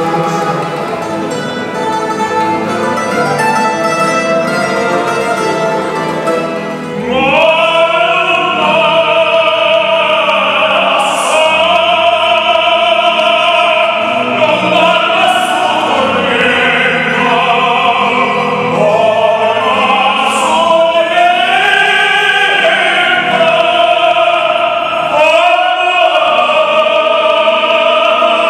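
A small mandolin ensemble plucking an instrumental passage; about seven seconds in, operatic tenor voices enter and sing with strong vibrato over the mandolin accompaniment.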